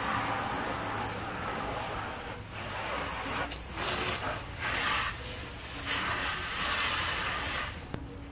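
Knife cutting along a shad on a plastic cutting board: a series of rasping strokes through the scales and skin, the separate strokes clearest in the second half.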